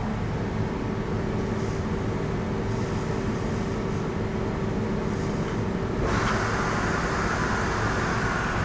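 Steady hum of a Tornos Swiss GT 13 CNC Swiss-type lathe running a cycle, with its mist collector drawing air. About six seconds in, a louder rushing hiss sets in and stays.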